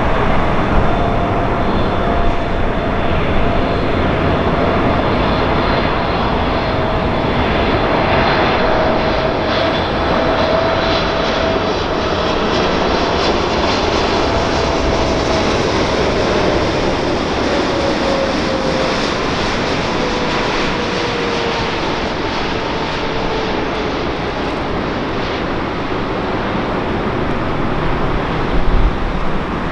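Boeing 747-8 jet airliner on final approach, its four GEnx turbofan engines giving a steady loud jet rumble. A whining tone in the engine noise slowly drops in pitch past the middle as the airliner goes by.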